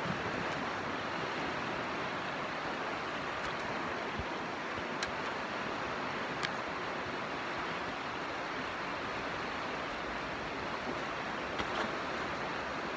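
Steady rush of river rapids, with a few faint clicks.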